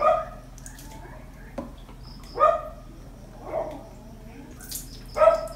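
A kitten meowing four times: short, high-pitched calls spaced a second or two apart, the first and last the loudest.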